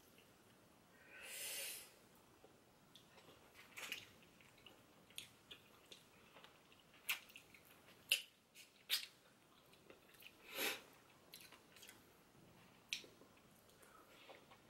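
Eating sounds of someone gnawing and sucking meat off grilled chicken feet held in the fingers: faint, scattered lip smacks and wet clicks, with two short airy hisses, one about a second and a half in and another past ten seconds.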